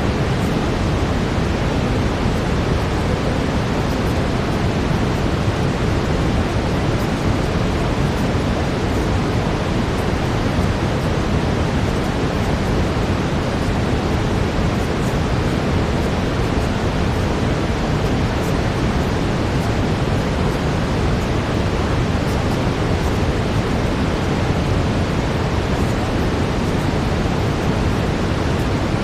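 Steady brown noise, a deep even hiss, playing without change.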